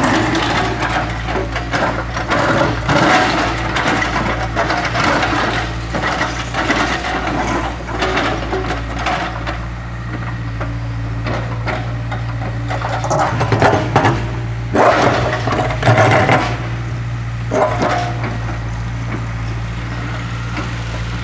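Tracked excavator's diesel engine running steadily, with repeated cracking and knocking of concrete slab being gripped and broken, thickest in the first half and in a few louder bursts later on.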